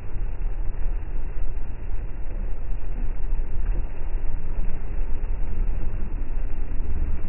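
Steady low rumble of a car driving on a wet road, heard from inside the cabin: engine and tyre noise with no changes in speed or sudden sounds.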